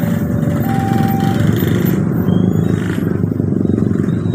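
Many motorcycle engines idling together in a queue at a closed railway level crossing. During the first second and a half the crossing's warning alarm sounds as an alternating high and low two-tone signal, telling that a train is approaching.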